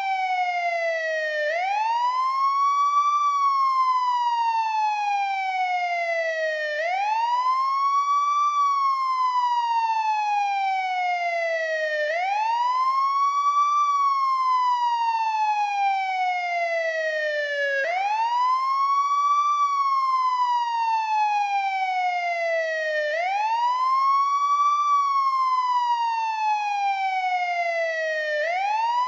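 Old-model NYPD police car siren on its wail tone: the pitch rises quickly, then falls slowly, in a steady cycle of about five seconds that repeats about five times.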